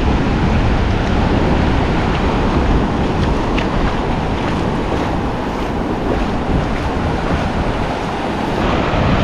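Ocean surf washing steadily over a shallow sandy beach.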